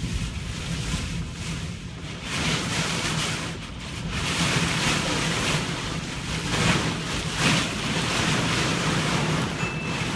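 Wind and rushing water in repeated surges, with wind buffeting the microphone and a steady low hum underneath.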